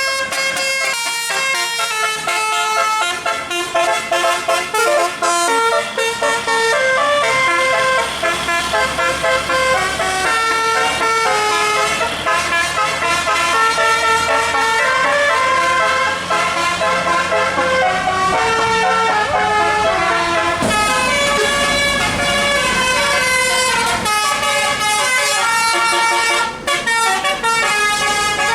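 Indonesian bus 'telolet' multi-tone horn playing a fast melody of short stepped notes, sounding almost without a break. A low rumble joins about two-thirds of the way through.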